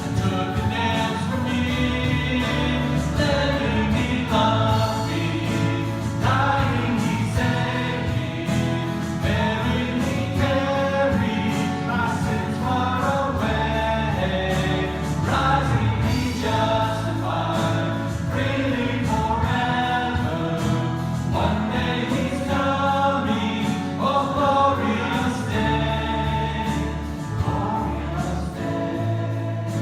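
Congregational worship singing: a group of voices singing a hymn or worship song over instrumental accompaniment.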